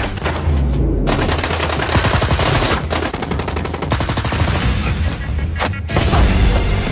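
Rapid gunfire from automatic weapons in a movie shootout, shot after shot for several seconds, stopping shortly before the end.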